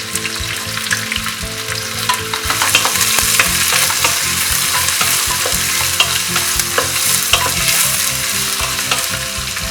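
Sliced onions sizzling as they fry in hot ghee and oil in a pressure cooker, stirred so that the spoon gives off frequent short clicks and scrapes against the pot.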